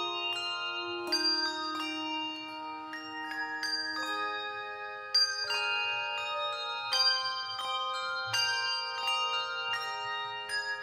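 Handbell choir ringing a piece of music: several bells struck together in chords, each note ringing on after it is struck, with a few louder strokes about five and seven seconds in.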